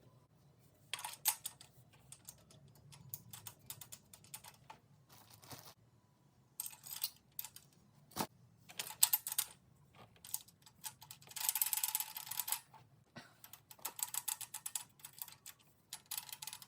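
Hand ratchet clicking in short bursts, with the odd sharp metal clink of tools, while the rocker-arm nuts on a Chevrolet L98 V8 are turned down to set hydraulic-lifter lash. The longest run of ratchet clicks comes a little past the middle.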